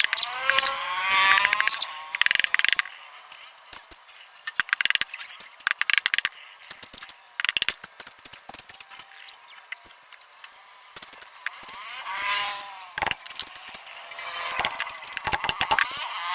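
Hand tools and small metal parts clicking, clinking and knocking in irregular bursts as an air compressor's pump is assembled by hand.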